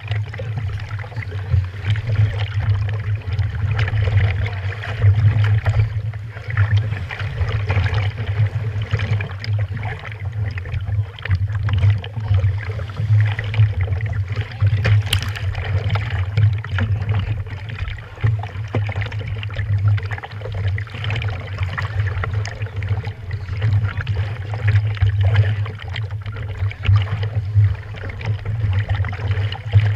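Seawater sloshing and lapping against a stand-up jet ski's hull at the waterline, over a steady low hum that pulses slightly.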